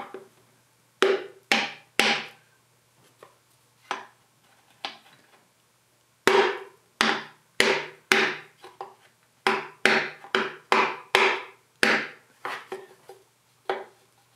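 Hammer striking a wooden dowel to drive the number 1 piston and connecting rod up the bore of a Yanmar 3TN75RJ three-cylinder diesel's cast-iron block. Three hard blows, a few light taps, then a run of about a dozen steady blows that ends in lighter taps, each blow ringing briefly.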